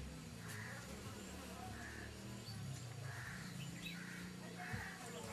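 Low, wavering buzzing drone with a soft hiss recurring about once a second.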